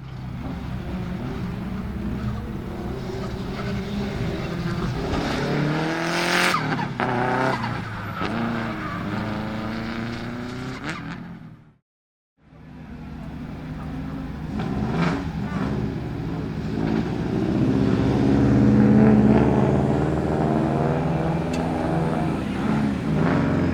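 Subaru Impreza GC8 Group A rally car's turbocharged EJ20 flat-four driven hard, its pitch rising and falling through revs and gear changes, with a few sharp cracks. The sound cuts out briefly about halfway through, then the engine is heard again.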